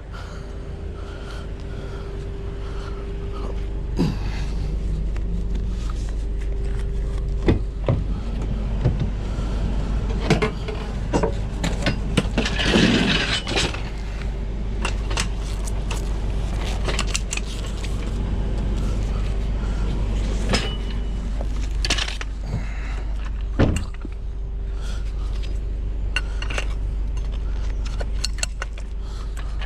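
Scattered metallic clanks, knocks and rattles from getting out a spare tire and roadside tools, over the steady low hum of an idling vehicle, with a longer scraping rustle about twelve seconds in.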